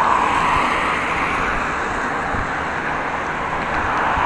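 Steady rushing of car traffic on the road alongside, swelling slightly as cars pass, over a low gusty wind rumble on a bike-mounted action camera's microphone.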